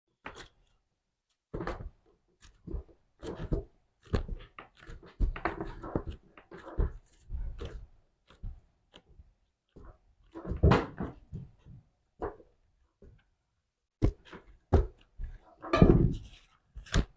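Slime being handled by hand: an irregular run of short squelches and pops, bunched into clusters with brief pauses between them.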